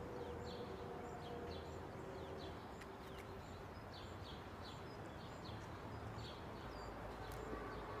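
Canary chirping in short, high, downward-sweeping calls, two or three a second, over a faint low hum.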